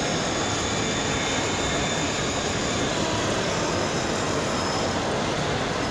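Steady, even background din of a large shopping-mall hall, with no pauses or sudden sounds.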